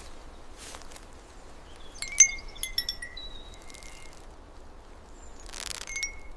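A quick cluster of light metallic clinks with ringing tones, like small chimes, about two seconds in, over a faint rustling background, with a brief swell of rustling noise near the end.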